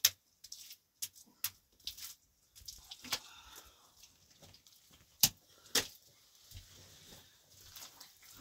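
A series of sharp clicks and knocks at irregular intervals, the loudest right at the start and two about five and a half seconds in.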